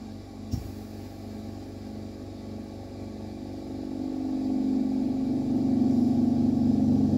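A steady, low machine hum that grows louder from about three seconds in, with a small click about half a second in.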